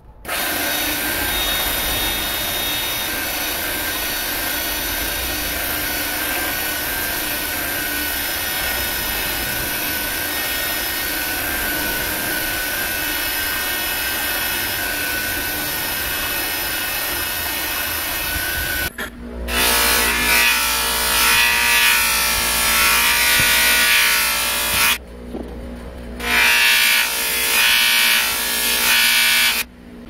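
Electric belt grinder running while a steel damascus knife blade is ground on the belt, a steady hiss of steel on abrasive. After about 19 seconds it grows louder and harsher, with a whine, in two stretches split by a brief break.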